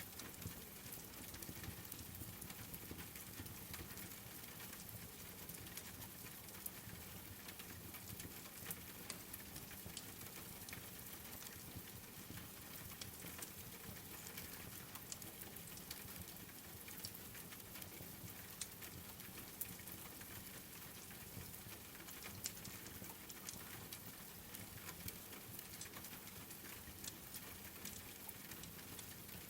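Steady rain mixed with a crackling wood fire: an even hiss with frequent small, sharp pops and ticks scattered through it.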